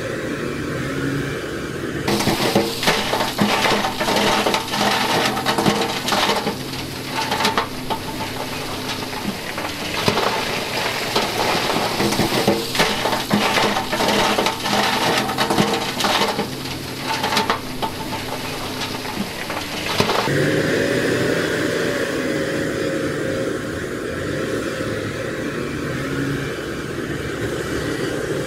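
Diesel dump truck engine running while a load of rock slides out of its raised tipper bed, clattering and tumbling for most of twenty seconds, starting about two seconds in. Near the end the rock stops and the engine revs, rising and falling in pitch, as the truck pulls away.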